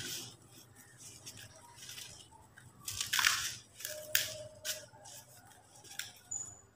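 Dry, dusty cement chunk being crumbled by hand into a plastic bucket: gritty crunching and crumbling, with louder crunches about three and four seconds in.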